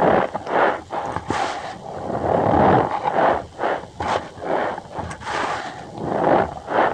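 Cornstarch powder being squeezed and pressed, giving a rapid, irregular run of squeaky crunches.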